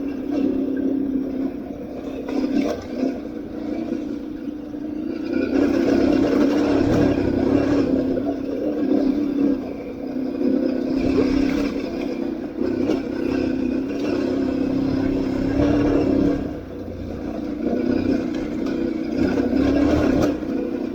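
Aprilia Tuareg 660's parallel-twin engine running under changing throttle while riding off-road. It gets louder about five or six seconds in and eases off and picks up again several times.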